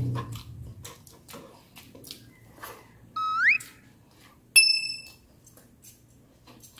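Close-up eating noises: chewing, wet mouth clicks and lip smacks. About three seconds in, a short rising whistle-like sound effect plays. A bright bell ding follows at about four and a half seconds. Both come from an on-screen subscribe-and-notification-bell animation.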